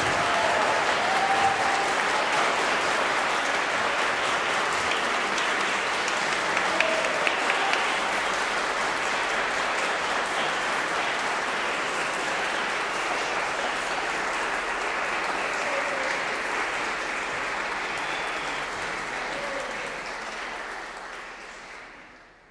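Audience applauding steadily, with a few faint voices among the clapping; the applause fades out near the end.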